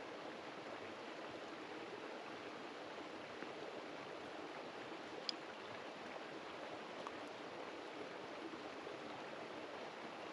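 Steady, even hiss of running water, with one short sharp click about five seconds in.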